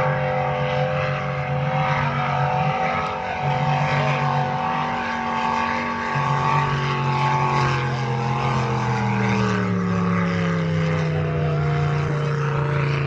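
Racing powerboat engines running flat out in a loud, steady drone. About two-thirds of the way through, the pitch starts to fall steadily as a boat passes by.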